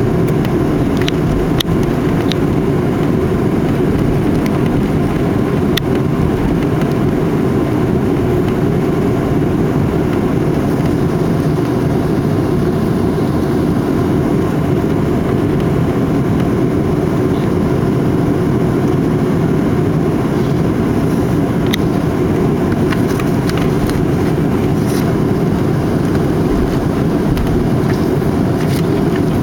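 Steady jet engine and cabin noise heard from inside an airliner after landing, with a few faint clicks.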